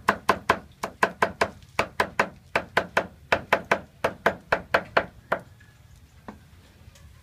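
Knife chopping green onions on a cutting board in quick, even strokes, about four to five a second. The chopping stops about five seconds in, with one last stroke a second later.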